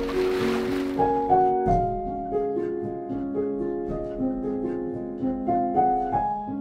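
Background instrumental music: a gentle melody of ringing notes stepping up and down over held lower notes. A rushing noise runs under the music at first and fades out about a second in.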